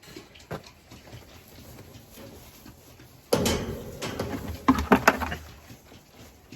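Pigs grunting and squealing: low grunts, then a sudden loud call about three seconds in and a second run of loud squeals about a second and a half later.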